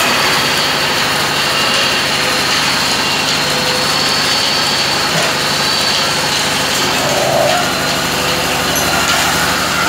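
Metal-spinning lathes for aluminium bucket blanks running steadily: a dense, loud machine drone with a steady high whine and low hum. A short extra squeal rises over it about seven seconds in.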